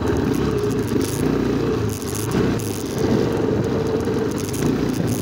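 Motor vehicle engine running at a steady pitch while travelling fast along a bumpy dirt track, with rattling over the rough ground.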